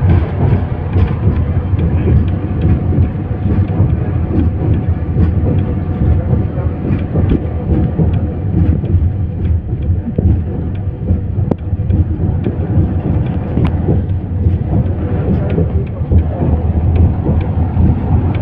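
Cabin noise inside a moving air-conditioned bus: a steady, loud low engine and road rumble with scattered sharp clicks.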